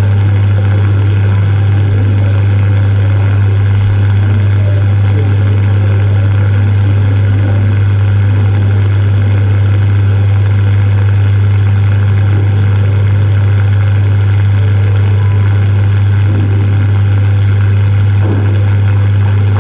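Loud, steady low electrical hum that holds one pitch without change, with a faint murmur of voices beneath it.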